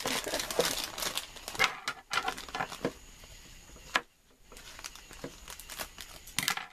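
Funko Mystery Mini's black foil blind bag crinkling and crackling as it is handled and pulled at. It is loudest in the first few seconds, goes quiet briefly about four seconds in, then crinkles again and sharpens near the end.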